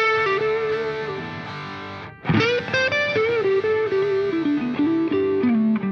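Instrumental background music with a melody line over held notes, breaking off briefly about two seconds in.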